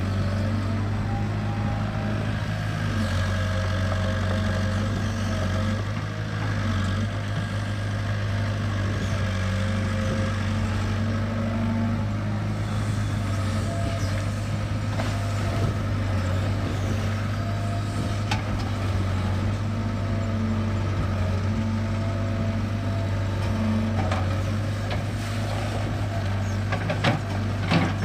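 Kobelco SK60-1 crawler excavator's diesel engine running steadily with a low hum, with a few short knocks near the end.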